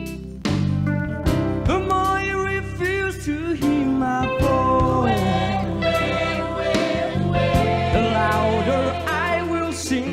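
Live gospel-style performance by a youth choir with a band: voices sing gliding, ornamented lines over electric guitar, bass and a steady beat.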